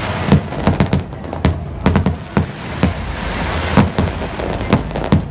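Aerial fireworks shells bursting: a rapid, irregular run of about fifteen sharp bangs over a continuous background noise.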